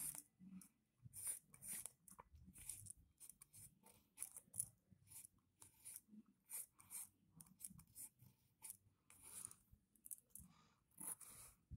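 Pencil scratching on paper in short, irregular strokes, faint.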